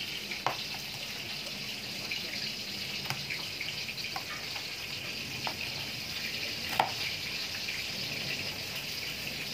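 Steady sizzle of oil frying in a pan, with a few sharp taps of a knife meeting a plastic cutting board as fried tofu is sliced; the loudest tap comes about two-thirds of the way through.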